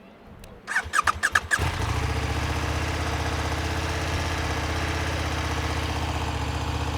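KTM 1390 Super Duke Evo R's V-twin engine starting: the starter cranks in a quick series of pulses, the engine catches about one and a half seconds in and then idles steadily with a fast, even beat.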